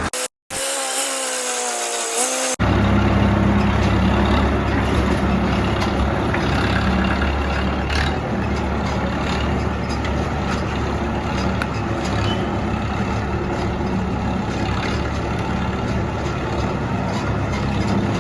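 Heavy vehicle engine running steadily at a constant low hum, from road-repair work. A short, different pitched sound plays near the start, between two abrupt cuts.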